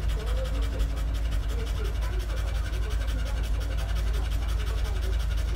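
Staffordshire bull terrier panting rapidly and evenly with its mouth open and tongue out, over a steady low rumble.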